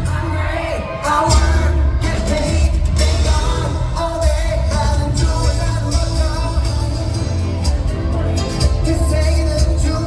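Pop song with a steady, heavy bass beat and a voice singing the melody over it.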